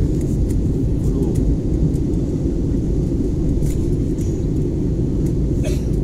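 Jet airliner cabin noise in flight: a steady low drone of engines and airflow, with a few faint clicks and rattles.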